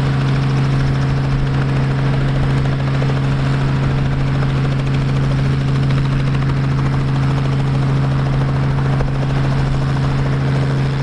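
Boeing 757-27A freighter's jet engines running at taxi power: steady engine noise with a strong low hum.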